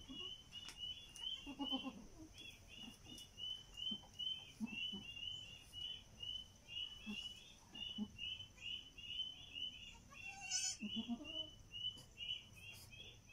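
Goats calling with short, soft, low bleats, once about two seconds in and again near eleven seconds, over a steady rapid high chirping of about three chirps a second.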